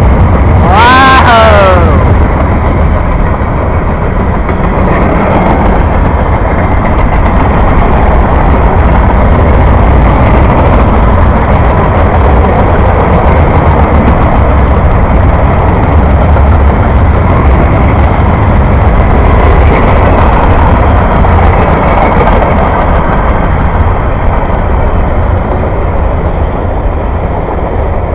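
CSX freight train passing close at speed. The locomotive's horn drops in pitch as the engine goes by and cuts off about two seconds in. Then comes the steady loud rumble and rattle of the freight cars (boxcars, tank cars, hoppers) rolling past on the rails.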